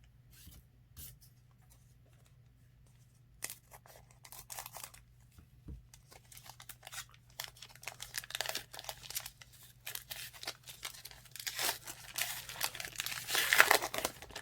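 Foil wrapper of a trading card pack being torn open and crinkled: a few light crackles at first, building into dense crinkling and tearing that is loudest near the end.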